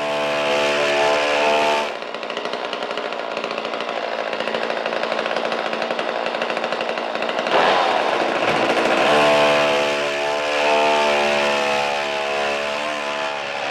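A gasoline chainsaw running loud, its engine note rising and easing several times. It cuts in suddenly at the start.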